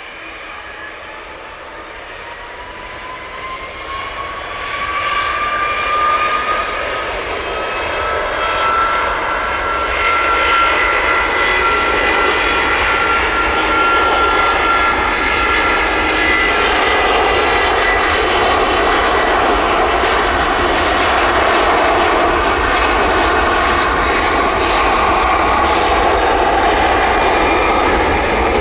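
Airbus A330's twin turbofan jet engines at takeoff power. An engine whine rises in pitch and the sound grows louder over the first ten seconds or so, then holds as a steady loud jet roar.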